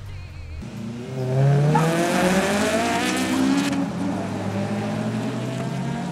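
Car engines revving hard as cars accelerate along a race circuit. The engine note climbs for a couple of seconds, then holds steady at high revs.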